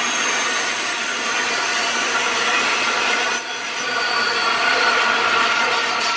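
Freight train's bulk hopper wagons rolling past on a curve, steel wheels squealing against the rails over the running noise of the wagons, with a brief lull about three and a half seconds in.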